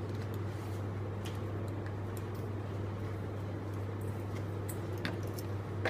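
Room tone: a steady low hum, with a few faint light clicks of small items being handled on the counter.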